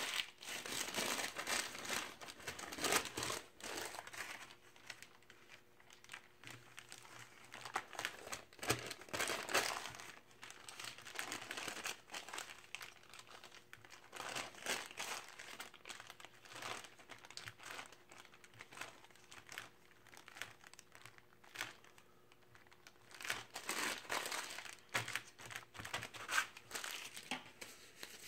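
A sheet of printed paper crinkling in irregular bursts as it is crumpled, pressed into wet spray paint and lifted off, with quieter pauses between the bursts: the crumpled-paper texturing step of spray paint art.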